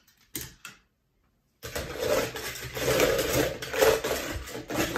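Die-cast toy cars clattering against each other and a plastic mixing bowl as they are stirred around, a dense jumble of metal clicks that starts suddenly about a second and a half in.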